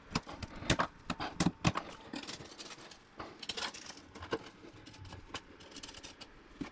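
Sharp plastic clicks and knocks from tile leveling clips being worked by hand, a quick cluster in the first two seconds. A notched steel trowel then scrapes and spreads thinset mortar on the wall, with a few more scattered ticks.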